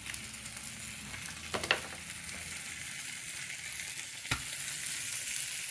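Slices of Spam sizzling steadily in a hot frying pan, with two light clicks, one about a second and a half in and one near four seconds in.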